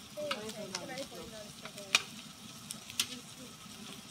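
Meat, seafood and chillies sizzling on a tabletop Korean barbecue grill pan, with metal tongs clicking sharply against the pan a few times as the food is stirred, the loudest click about two seconds in.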